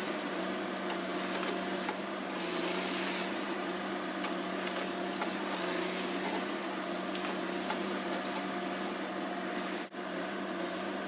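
Harvesting machinery running steadily, a constant hum with hiss over it. It drops out briefly near the end.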